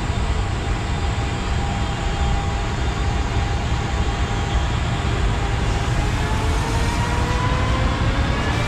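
JR Freight EF210 electric locomotive accelerating away with a heavy container train: its VVVF inverter whines in several tones that climb slowly in pitch, rising faster in the second half. Beneath it runs a steady low hum from the locomotive's cooling blowers and traction motors.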